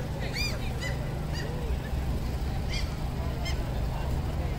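Gulls calling repeatedly, a string of short, arching high calls, over a steady low background rumble.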